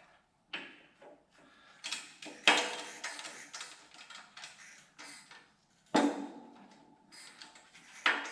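Irregular metal clanks and clinks of steel gears and tools as gears are worked off a Honda J-series transmission shaft. The loudest knocks come about two and a half and six seconds in.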